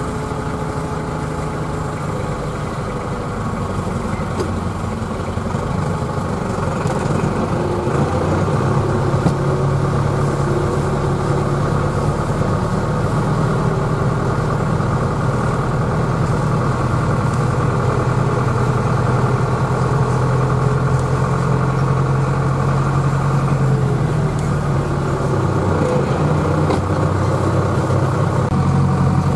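Tractor engine running under way, heard from inside its cab. The engine note rises and grows louder about eight seconds in, then dips briefly and picks up again near the end.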